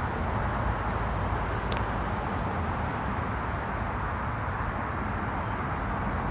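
Steady outdoor background rumble and rushing noise, even throughout, with no distinct events.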